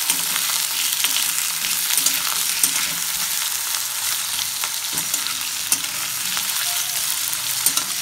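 Potato sticks sizzling as they fry in mustard oil in a metal kadai, with a steel spatula scraping and clicking against the pan as they are stirred. The sizzle holds as a steady hiss, broken by frequent sharp ticks.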